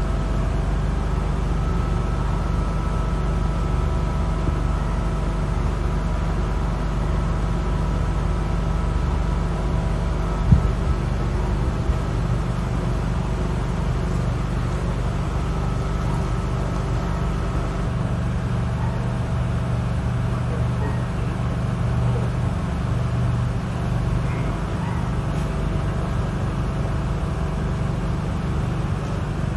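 Steady low mechanical hum, unchanging throughout, with a few faint steady tones above it. A single sharp knock comes about ten and a half seconds in.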